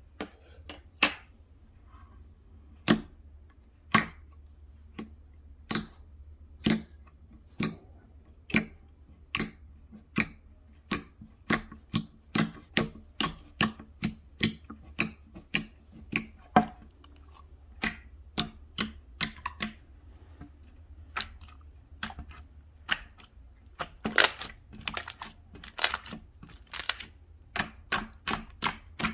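Slime being poked and squeezed by hand, giving sharp clicking pops. They come about one a second at first, then faster, and bunch up thickly near the end.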